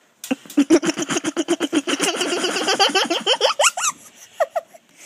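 Someone laughing hard and uncontrollably in a rapid run of short 'ha' pulses, several a second. Near the end the laughter breaks into a few high, rising squeals.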